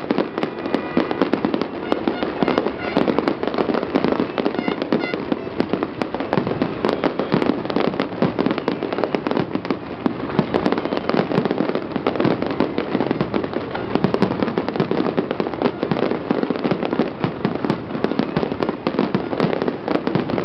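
Aerial firework shells bursting many at a time in quick succession: a dense, unbroken run of bangs and crackles with no pause.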